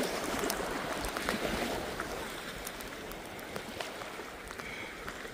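Choppy fjord water lapping and sloshing close to the microphone, with wind rumbling on the mic.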